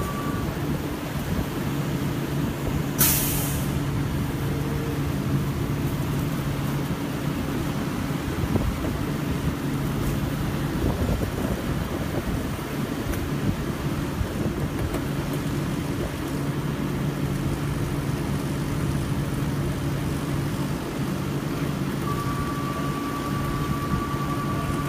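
Wood chipper's engine running steadily, with a short, sharp hiss of air about three seconds in and a faint steady whine near the end.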